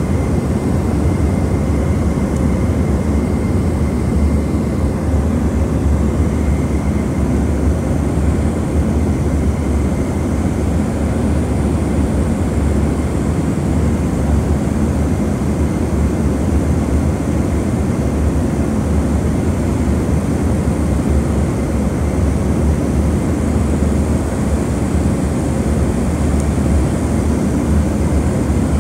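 Turboprop airliner's engines and propellers running steadily, heard from inside the cabin: a constant deep drone with a faint high whine over it.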